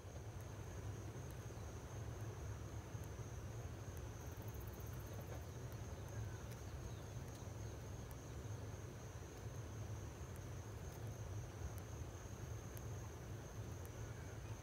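Steady high-pitched insect trill over a constant low hum, with a few faint clicks.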